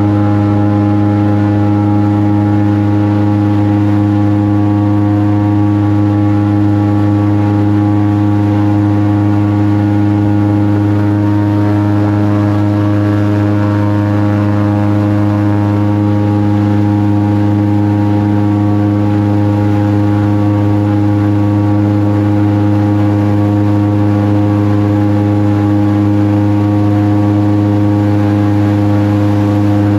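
Airboat's engine and air propeller running steadily: a loud, even drone that holds one pitch throughout.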